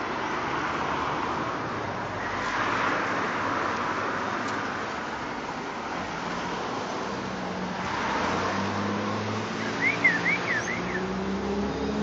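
Road traffic: vehicles passing by, swelling and fading twice, then a vehicle engine's low steady hum that shifts in pitch near the end. A quick run of four or five short high chirps about ten seconds in.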